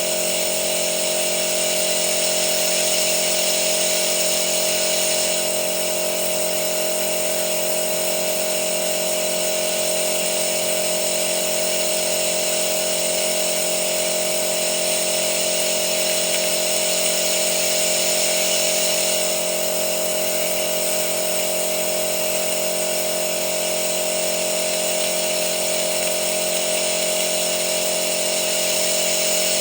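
A machine running steadily with a constant whine and hiss, unchanging throughout.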